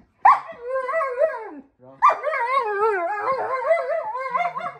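German Shepherd complaining in long, wavering howl-whines, its pitch sliding up and down: a short call, then a longer one about two seconds in. It is the dog's vocal protest at being asked to roll over.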